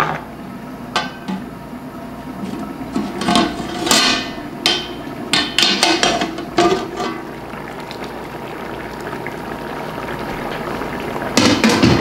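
Sharp metal clinks and knocks of a spoon and utensils against a large aluminium pot and its lid. A steady hiss slowly grows louder as the masala water heats under the lid toward the boil, then a louder clatter of metal comes near the end as the lid is handled.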